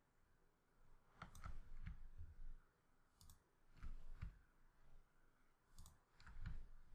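Computer mouse clicking: a handful of sharp, quiet clicks, some in quick pairs, a second or two apart, as edges are selected and dragged in the 3D program.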